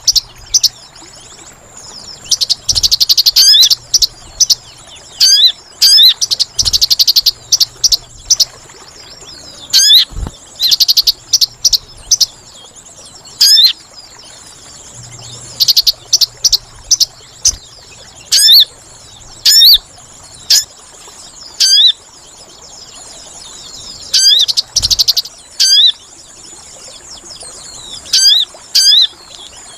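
Sogon bird lure calls, loud and high, repeating every second or two: short chattering bursts alternate with quick rising chirps, over a faint steady high buzz.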